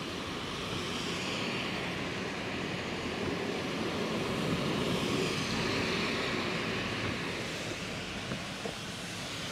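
Steady hiss of car tyres on a rain-soaked road, heard from inside the moving car, swelling a little about halfway through and easing near the end.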